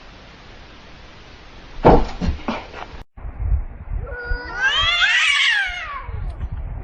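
A cat's long yowling meow, about two seconds long, rising and then falling in pitch. It comes after a brief clatter of a few knocks.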